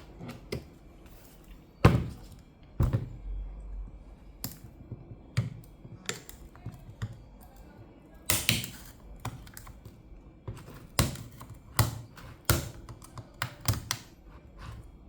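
Irregular plastic clicks, taps and knocks of a laptop's parts being handled and pried apart by hand, with a short scrape about eight seconds in.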